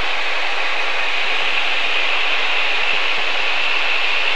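Steady hiss of cabin noise in a Grumman single-engine light plane in cruise flight: engine, propeller and airflow blended into one even rush, holding level throughout.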